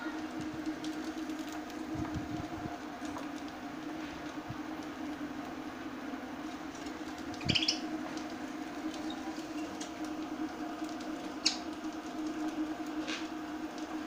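Budgerigars in a cage giving a few short, high chirps, the loudest about halfway through, over a steady low hum.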